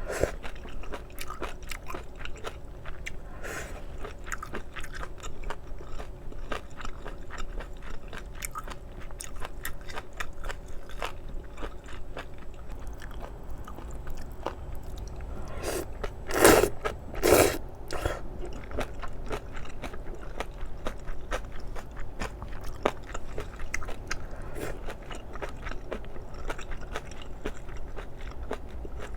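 Close-up mouth sounds of a person chewing spicy stir-fried octopus and somen noodles: a steady stream of small wet clicks and squelches. Two louder sounds of about half a second each come about two-thirds of the way through.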